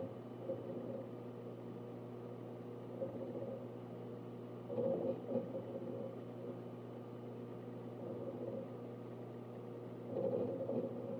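A Synology DS1821+ eight-bay NAS running: a steady hum made of several fixed tones. Louder swells of noise come about every five seconds, about five seconds in and again near the end.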